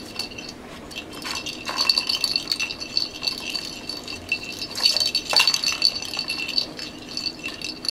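Balls rattling and clicking around the plastic tracks of a cat's ball-track tower toy as a kitten bats at them, with a light high-pitched jingle running through. The rattling comes in flurries, loudest around two and five seconds in.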